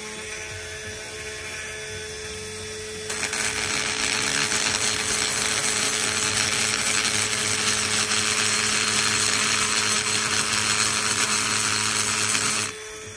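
18V brushless cordless rotary tool spinning a tungsten carbide burr in the aluminium intake port of a Predator 212 cylinder head. It runs with a steady whine at first, then about three seconds in the burr bites into the metal and a loud grinding rasp joins it, worked in small circles to grind down a hump in the port, until it lifts off near the end.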